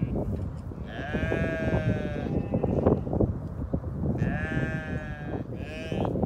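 Sheep bleating, with two long, wavering bleats about a second and four seconds in and a short one near the end, over a steady low rumble.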